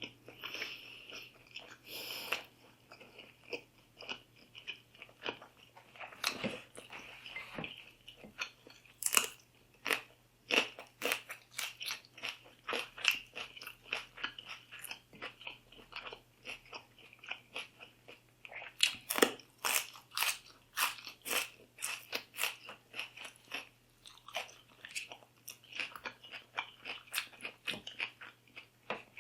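Close-up eating sounds: a person biting and chewing food in a steady run of quick, sharp, wet clicks, densest around ten seconds in and again around twenty seconds in.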